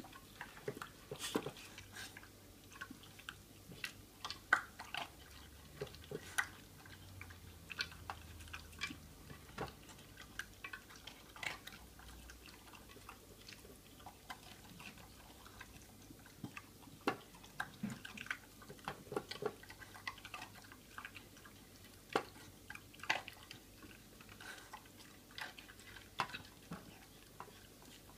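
Beagle eating from a DogIt Go-Slow anti-gulping bowl: irregular crunches, clicks and knocks of chewing and of the dog working its food around the bowl's raised centre, several sharp clicks every second or two.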